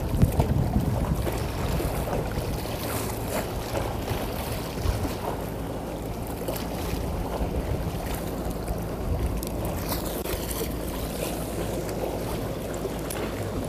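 An engine runs steadily with a low hum, with wind on the microphone and water lapping.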